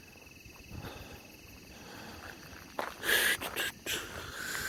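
Crickets trilling steadily in the night, with two short loud rushes of rustling noise about three and four seconds in.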